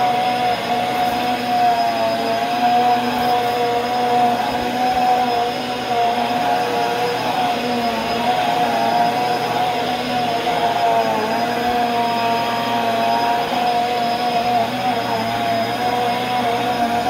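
Bissell bagless upright vacuum cleaner running while pushed over carpet: a steady motor whine over rushing air, its pitch wavering slightly as it goes.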